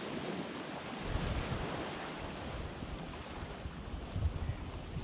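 Sea waves washing, with wind buffeting the microphone in irregular low gusts.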